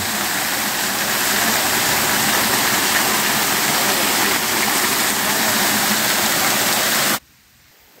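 Small two-stream waterfall pouring onto rocks into a pool, a steady rush of falling water that cuts off suddenly about seven seconds in.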